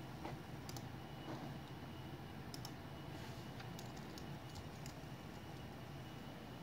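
Faint scattered clicks, a few in all, over a steady low hum and a faint thin high tone.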